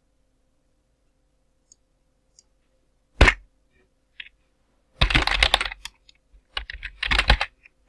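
Computer keyboard typing: after about three seconds of near silence, one sharp click, then two quick bursts of rapid keystrokes.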